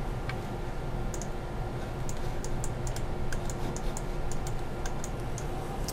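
Computer keyboard keys tapped in a quick, irregular run of light clicks, over a steady low hum.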